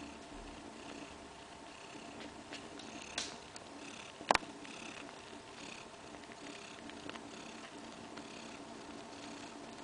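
Siberian cat purring steadily, close up, the purr swelling about once a second. One sharp click about four seconds in is louder than the purring.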